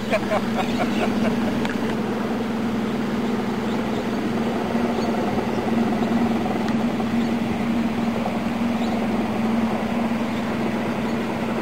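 Small dinghy's outboard motor running at a steady speed, a constant drone with no change in pitch.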